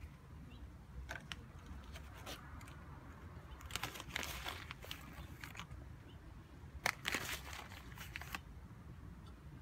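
Crinkling and rustling of a paper seed packet as a hand reaches in for green bean seeds, in short scattered bursts, the loudest about four and seven seconds in.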